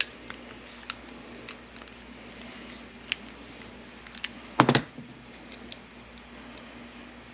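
Light clicks and taps as a cut-open shotgun shell and its lead shot pellets are handled, with a louder clatter a little under five seconds in.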